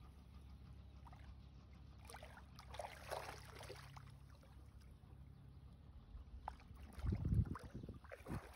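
Faint outdoor ambience at the shore of a calm sea: a low steady wind rumble with a few soft water laps, then gusts of wind buffeting the microphone about seven seconds in.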